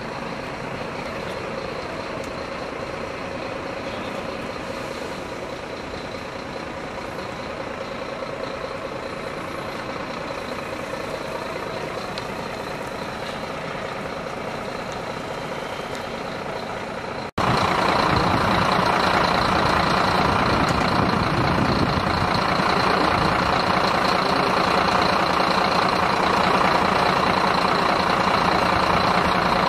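Fire engine idling steadily. After a cut about 17 seconds in, it is louder and closer.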